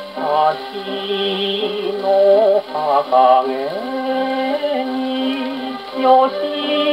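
A 1949 78 rpm shellac record of a Japanese popular song played acoustically on an HMV 102 wind-up portable gramophone: a male singer with instrumental accompaniment, heard through the mechanical soundbox with a thin tone and no top treble.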